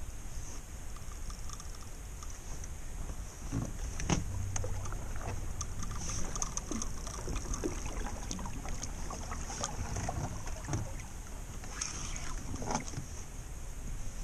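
Water lapping and slapping against the hull of a small fishing boat, with irregular small knocks and splashes over a steady wind rumble on the microphone.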